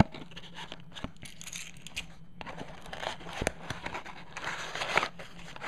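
Cardboard toy packaging being opened by hand: flaps and sleeve rustling and crinkling, with scattered sharp clicks, the loudest about three and a half seconds in.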